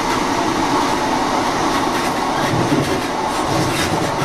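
A Class 153 diesel multiple unit running on the move, heard in the gangway between units. The sound is a steady rumble of the underfloor diesel and the wheels on the rails, with a few faint clicks.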